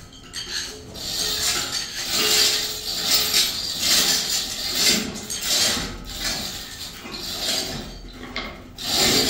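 Rough rasping scraping strokes repeating about once a second.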